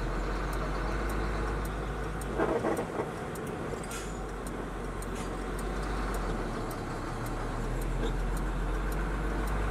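Truck engine running and road noise, heard from inside the cab as the truck turns slowly across a junction.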